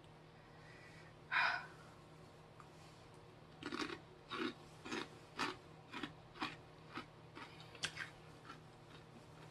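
A person chewing hot chili pepper and lime Takis rolled tortilla chips with dentures: one short crunch about a second and a half in, then a run of quiet, crisp crunching chews, about two a second, for several seconds.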